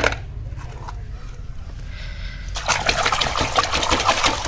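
A hand splashing and churning water in a basin while washing toys, quiet at first, then rapid splashing from a little past halfway.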